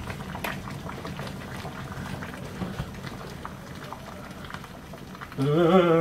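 Water bubbling and crackling in a large stainless-steel stockpot on the stove, heated for cooking pig's trotters. A man's voice sounds briefly near the end.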